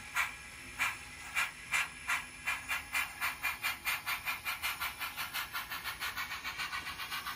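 Model Norfolk and Western Baldwin 2-8-0 steam locomotive making sound-system exhaust chuffs as it pulls away. The chuffs come slowly at first and quicken steadily to several a second as it gathers speed.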